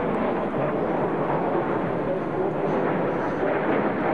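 Steady jet noise from a nine-ship formation of BAE Hawk T1 jet trainers flying overhead, their Adour turbofan engines making a continuous, even rushing sound.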